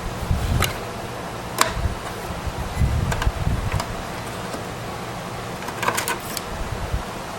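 Scattered sharp clicks and light knocks of desktop computer parts being handled, about half a dozen, over a low uneven rumble.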